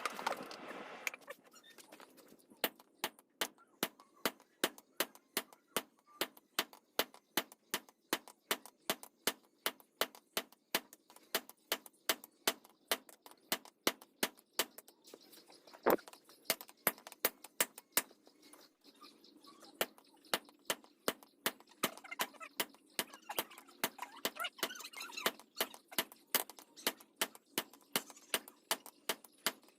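Light, sharp hammer taps at an even pace of about three a second, with one louder knock about halfway through, as in tapping work on a khukuri during handle making.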